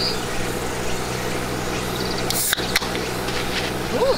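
Steady low hum and hiss with insects chirping in short high pulsing trains. Two sharp clicks come about two and a half seconds in.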